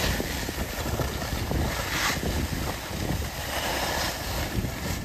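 Wind buffeting the microphone outdoors: a steady, gusty rushing rumble.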